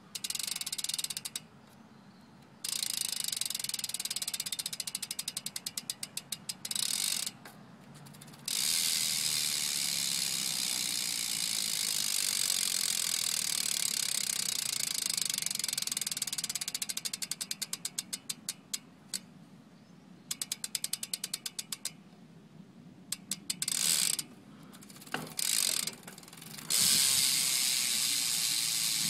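Profile Totem rear BMX hub freewheeling, its pawls ratcheting in a loud, fast buzz. It is spun up several times; the clicks slow into separate ticks as the wheel winds down, stop briefly, then the buzz starts again.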